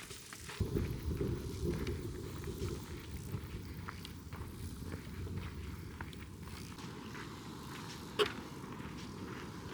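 A hiker's footsteps on a mountain trail, over a low rumbling noise that comes in under a second in, with one sharp click near the end.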